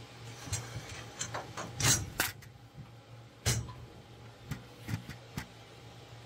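Metal honeycomb work bed of a laser cutter being lifted and slid out of the machine: a string of clicks and knocks, loudest about two seconds in and again a second and a half later. A steady low hum runs underneath.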